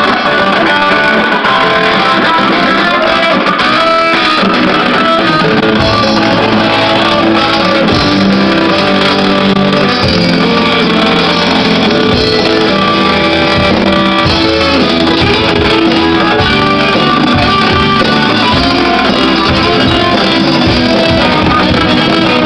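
Live band music led by electric guitar over bass guitar, loud and steady, picked up on a camera's built-in microphone; the low bass notes grow stronger about six seconds in.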